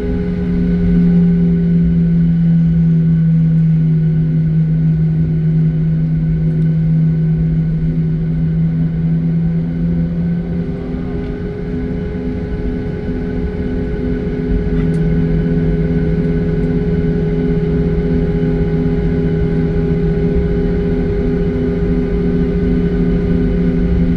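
Airliner cabin noise: the steady drone of the jet engines with a low rumble and several steady hum tones. The strongest hum drops out about ten seconds in and comes back a few seconds later.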